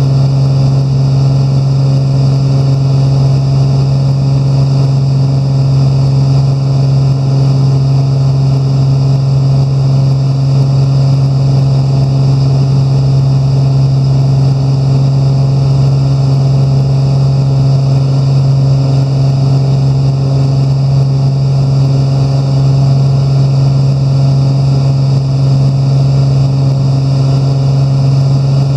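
Lycoming piston engine and pusher propeller of a Velocity XL aircraft running at steady power in flight, heard inside the cabin as a loud, even drone with a strong low hum.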